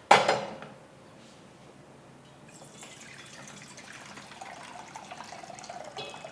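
A sharp knock just after the start, then water poured into a vessel, the pour growing louder toward the end.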